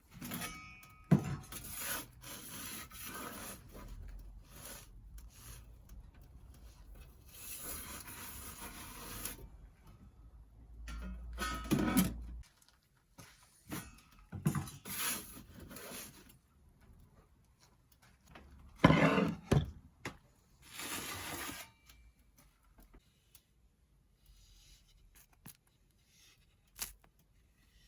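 Pizza peel scraping and rubbing on the stone floor of a wood-fired pizza oven as the pizza is turned, in irregular bouts of a second or two with a few sharp knocks, quieter near the end.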